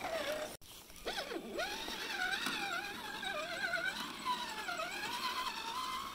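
Electric motor and gear whine of an RC rock crawler truck creeping over rocks, the pitch wavering up and down as the throttle is fed on and off. The sound cuts out for an instant about half a second in.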